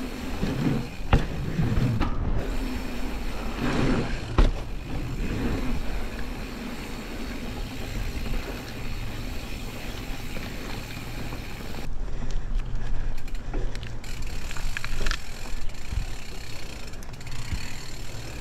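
Specialized Status 140 mountain bike rolling over a dirt trail: steady tyre and drivetrain rattle, with sharp knocks about one second and four and a half seconds in.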